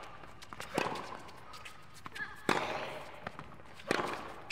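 Tennis rally on a hard court: three sharp racket strikes on the ball about a second and a half apart, with fainter ball bounces between them.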